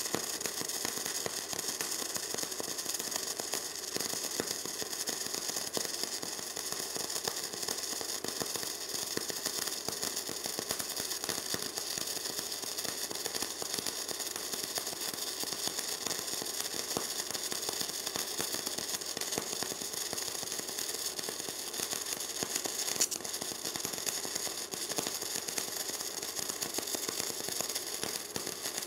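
Gasless flux-core wire welder (WR0-250) arc crackling and sizzling steadily without a break while a bead is laid with stainless steel wire on a 6 mm plate.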